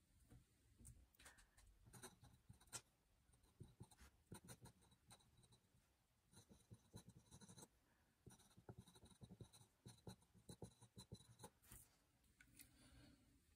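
Faint scratching of a pen nib writing by hand on thin Tomoe River paper, in short runs of strokes with brief pauses between words.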